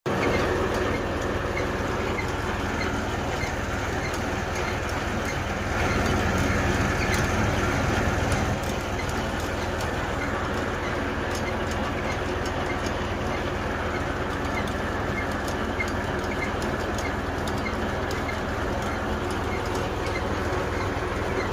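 Tractor diesel engine running steadily under load, driving a borewell drilling rig and its pump through the shaft, with scattered clicks and knocks from the rig's machinery. It gets a little louder for a couple of seconds partway through.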